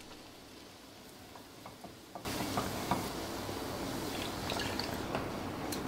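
A silicone spatula stirs a butter, garlic and flour roux in a nonstick saucepan, with faint scrapes and ticks. About two seconds in, with milk added for a white sauce, a steady hiss of liquid in the hot pan starts suddenly, with light spatula knocks.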